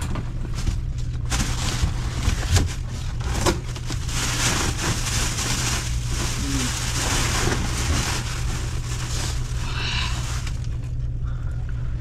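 Cardboard carton and plastic wrapping rustling and crackling as hands dig frozen crabs out of a box. It starts about a second in and dies away near the end, over a steady low hum.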